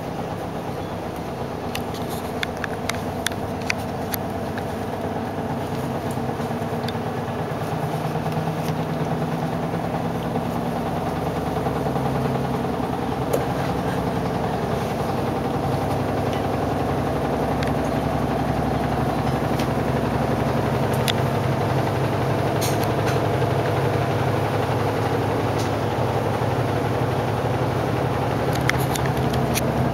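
A motor running with a steady low hum that grows louder over the first half, with a few light clicks scattered through it.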